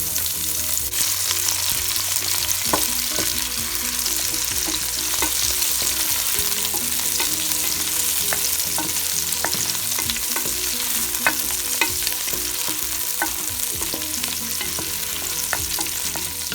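Chopped onions and garlic sizzling in hot oil in a frying pan while being stirred, a steady hiss with the utensil clicking against the pan every second or two.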